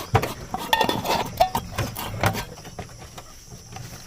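A busy run of short knocks and clinks from utensils and food being handled, settling down about halfway through, with crickets chirping faintly in the background.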